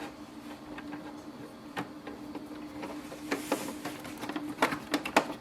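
Sharp plastic clicks and taps as the inside of an Epson EcoTank inkjet printer is handled and its corner screws are refitted, coming thicker and louder in the second half. A steady faint hum runs underneath.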